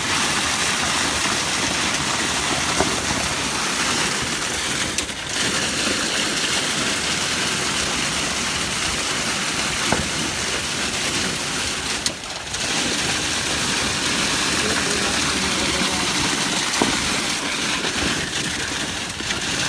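Concrete pump running while M250 concrete pours from its delivery hose into strip-foundation formwork: a loud, steady rushing noise that dips briefly twice.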